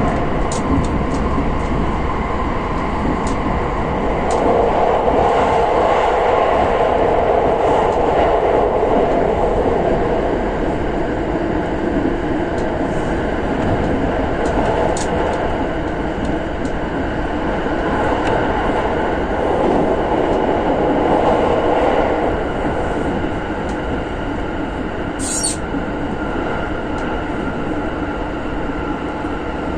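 683-series electric limited express train running at speed, heard from inside the car: a steady rumble of wheels on rail that swells and eases. A few faint clicks are heard, with a sharper click near the end.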